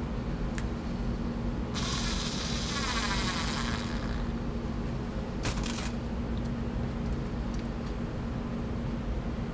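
Small electric motor of an AA-powered cordless screwdriver buzzing for about two seconds as it tries to turn a screw, running on a nearly drained NiCad pack, followed by a sharp click a couple of seconds later.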